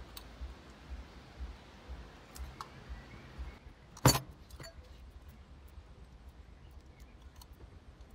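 Light metallic clinks and rattles of a small brass chandelier's parts being handled and fitted together, with one sharp knock about four seconds in.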